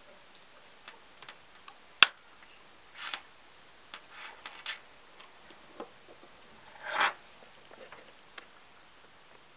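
Small metal clicks and handling noises of a quartz pocket watch's hinged case being closed by hand, with one sharp snap about two seconds in as the case shuts. Short rustles follow, the longest about seven seconds in.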